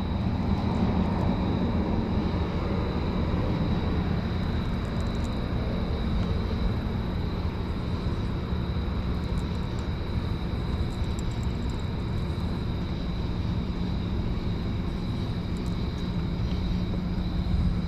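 A steady low engine drone with an even hum that does not change, and a thin steady high whine above it.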